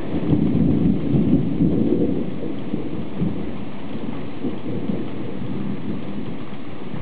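Thunder rumbling for the first two or three seconds over steady rain, then the rain goes on alone.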